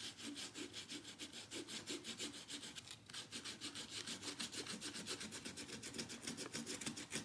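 Dried masking fluid (frisket) being rubbed off watercolour paper with a rubber pickup eraser, in quick, even back-and-forth scrubbing strokes of about eight a second.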